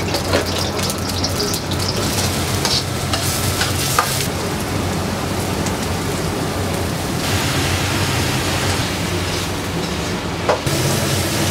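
Diced onion and carrot sizzling in hot oil in a wok as they are stir-fried, with a few sharp clicks of the metal ladle against the pan over a steady low hum.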